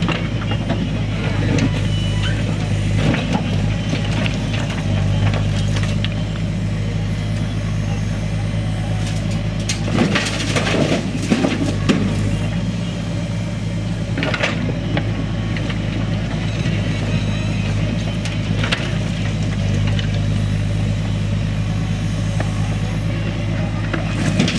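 Diesel engine of a backhoe loader running steadily, with bursts of clattering impacts about ten seconds in and again a few seconds later as stones are dropped into a tractor trolley.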